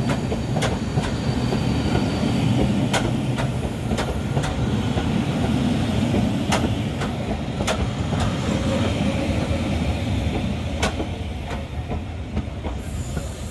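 Rake of passenger coaches rolling past close by: a steady low rumble of wheels on track with irregular sharp clicks as the wheels cross rail joints. The sound fades near the end as the last coach passes.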